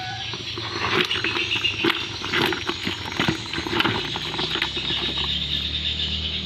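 Live papuyu (climbing perch) flapping and splashing in shallow water in a plastic tub while a hand rummages among them: a run of irregular wet slaps and patters.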